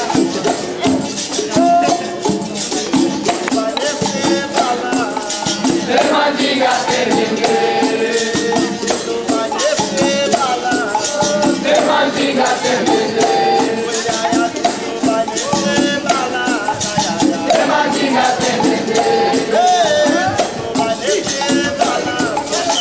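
Capoeira angola roda music: berimbaus with caxixi rattles, pandeiros and an atabaque drum playing a steady rhythm, with singing over the top.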